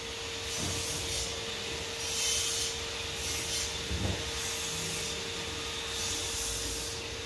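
Rubbing or scraping in even, repeated strokes, a little more than one a second, over a faint steady hum.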